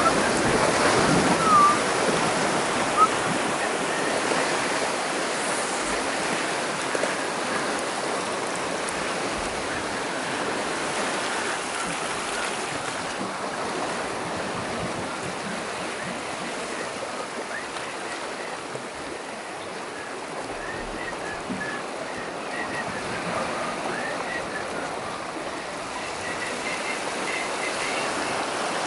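Sea surf washing over and breaking against shore rocks, a steady rush of water that is loudest in the first few seconds and eases off after.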